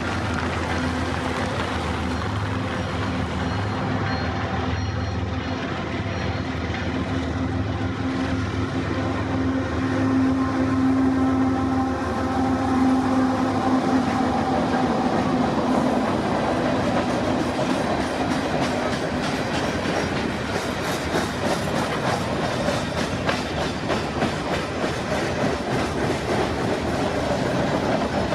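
CPKC freight train passing: a diesel locomotive's engine drones steadily at first. It then gives way, about halfway through, to the rumble of freight cars rolling by, with rhythmic wheel clicks over the rail joints.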